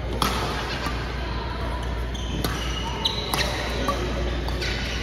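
Badminton rally: several sharp racket hits on the shuttlecock at uneven intervals, with short high squeaks of sneakers on the court mat in between.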